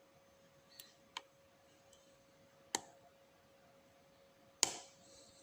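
Sharp metallic clicks of a lock pick and tension tool working inside a spool-pinned Abus 7240 padlock: four separate clicks a second or more apart, the last one loudest.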